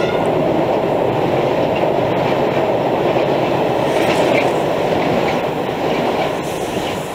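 Freight train wagons rolling across a steel lattice bridge: a steady rumble that eases slightly near the end.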